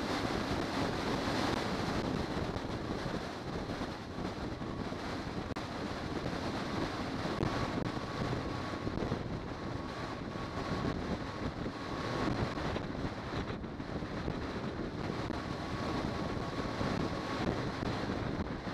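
Wind buffeting the microphone of a camera mounted on a car's hood as the car drives at road speed, with road and engine noise underneath. A faint high whine comes and goes.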